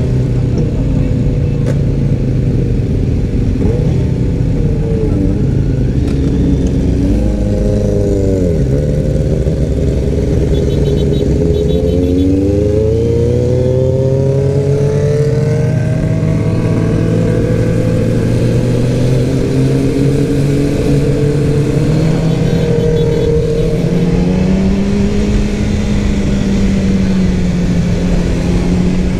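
Sport motorcycle engine running under way, its pitch dropping about eight seconds in and climbing again from about twelve seconds as the rider rolls off and opens the throttle. Wind rushes across the microphone throughout.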